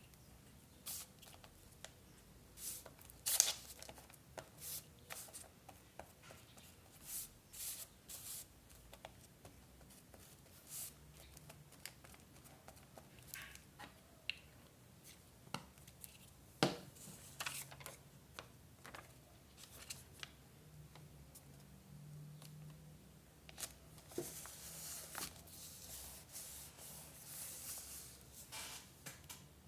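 Scrapbooking paper and craft tools being handled: a scattered series of sharp snips and clicks, with a longer stretch of paper rustling and rubbing near the end.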